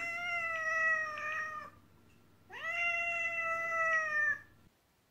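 Black-and-white domestic cat meowing: two long, drawn-out meows a little under a second apart, the second starting with a quick upward slide in pitch.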